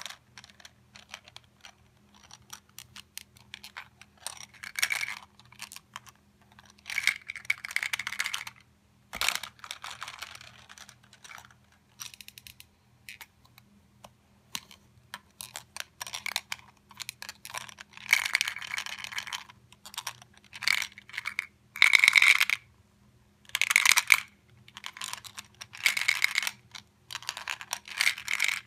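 Hard plastic toy shark clicking and clacking in irregular bursts as it is worked across carpet and snaps up candy-coated M&Ms, with short pauses between the bursts.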